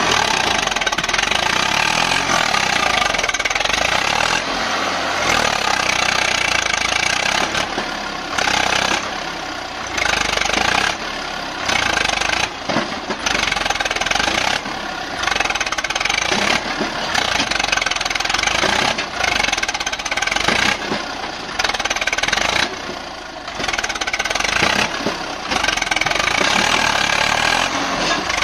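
Swaraj 744 tractor's diesel engine working hard under load as it drags a heavily loaded soil trolley through soft ground. Its sound surges and drops again and again.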